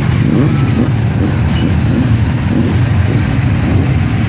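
Several motorcycle engines running at idle close by, with a few short rising revs in the first half.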